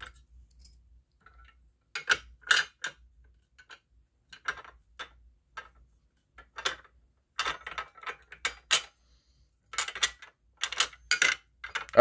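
Manual fire alarm pull station being opened and reset by hand: over a dozen sharp clicks and clacks of its hinged cover, pull handle and inner parts knocking against the metal and plastic housing, in irregular bunches.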